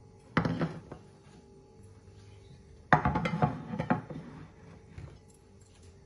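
A ceramic plate and a wooden cutting board handled on a kitchen countertop: a short clatter about half a second in, then a sharp knock about three seconds in followed by a second of clinking and scraping, and a few light taps near the end.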